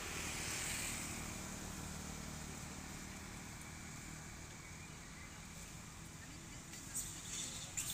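Motor vehicle traffic: a low engine hum that slowly fades away, with a few sharp clicks near the end.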